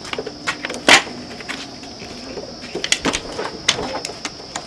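Irregular metallic clicks and knocks of hand tools and parts being handled at a motorbike's handlebar and throttle assembly, with one louder knock about a second in and a quick cluster of clicks a little past halfway. A steady high-pitched hum runs underneath.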